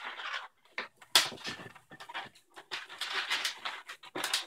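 Long latex modelling balloons squeaking and rubbing as they are twisted and folded by hand, in irregular bursts, with a loud squeak about a second in.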